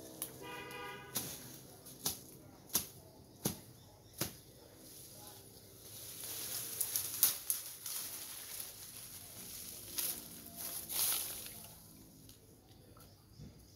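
Undergrowth being cleared by hand: five sharp cracks roughly 0.7 s apart as woody stems are chopped, then a longer stretch of leaves and branches rustling as they are pulled, with a few louder snaps.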